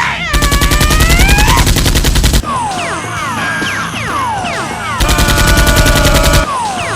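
Two bursts of rapid automatic gunfire, a dubbed sound effect: the first about two seconds long, the second shorter, starting about five seconds in. Between and after the bursts come repeated falling whistle-like tones.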